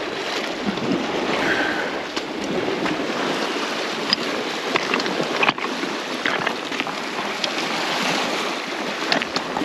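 Lake water lapping and washing steadily, with wind on the microphone and a few faint clicks.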